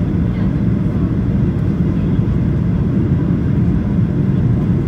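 Cabin noise inside a Boeing 737-800 on approach: a steady, low rumble of its CFM56 engines and the airflow over the fuselage, heard from a window seat beside the wing.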